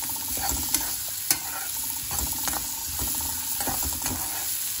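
Chopped onion sizzling as it fries in hot oil in a kadhai, stirred and scraped with a spatula, with several sharp taps of the spatula on the pan; the loudest comes about a second in. This is the onion being sautéed in the tempering.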